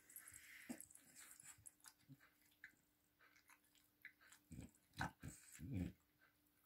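Near silence, with a few short, faint sounds from a small Yorkshire terrier about two-thirds of the way through.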